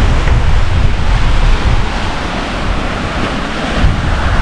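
Waves washing onto the shore in a continuous rush, with strong wind buffeting the microphone in a heavy low rumble.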